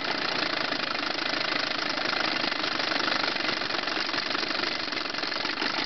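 Chrysler 9.9 hp two-stroke outboard motor running steadily at idle, its low-speed fuel mixture being adjusted on the carburettor.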